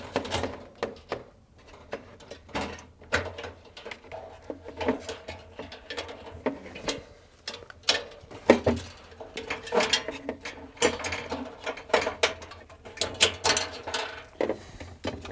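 Irregular clicks, knocks and light rattles of metal parts being handled: a freezer defrost heater being worked out past the evaporator coil, which has been pulled forward for clearance.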